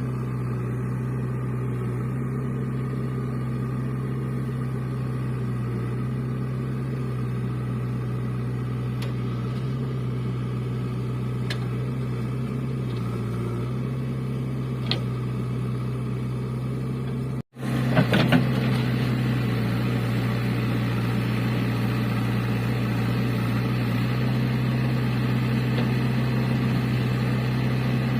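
JCB 3DX backhoe loader's diesel engine running steadily with a low drone. There is a sudden break about two-thirds of the way through, followed by a few knocks, and then the engine runs on.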